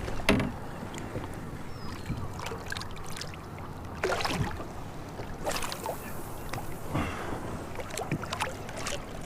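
Water splashing and slapping against the hull of a small fishing boat: several short splashes over a steady wash of wind and sea, the clearest about four seconds in.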